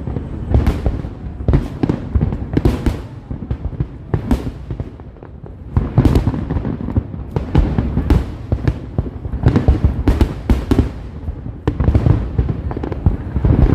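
Fireworks display: a continuous barrage of aerial shells bursting with booms and sharp cracks, in denser volleys now and then, with rumble between.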